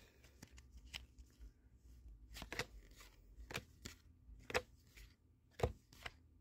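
Pokémon trading cards being flipped through by hand, each card sliding off the stack or laid down with a short, faint snap, at irregular intervals of about a second.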